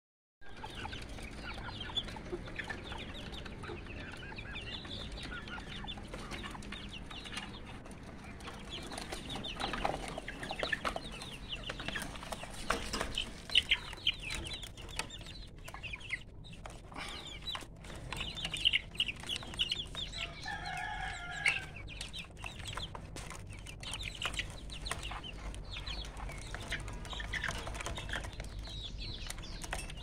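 Chickens clucking with many short calls throughout. A longer, louder call comes about twenty seconds in.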